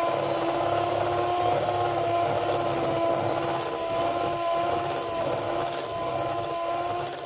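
Handheld electric mixer running steadily, its beaters churning through cake batter with mashed banana just added; a steady motor whine that wavers slightly in pitch.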